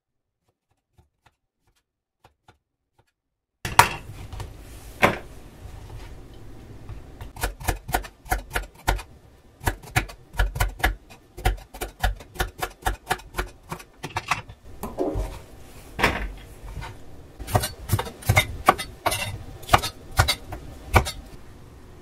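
A crinkle-cut knife slicing carrots on a wooden cutting board. The blade knocks sharply and unevenly against the board, several strokes a second, starting about three and a half seconds in after near silence.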